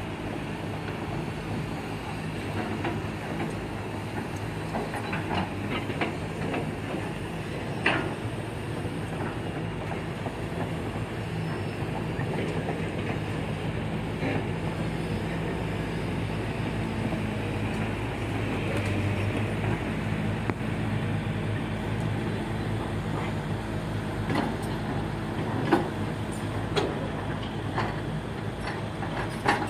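Diesel engines of several Caterpillar hydraulic excavators running steadily under load while digging earth, with a few sharp clanks and knocks from buckets striking rock and soil, several of them close together near the end.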